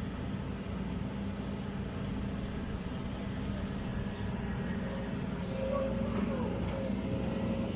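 Backhoe loader's diesel engine running steadily at a constant speed.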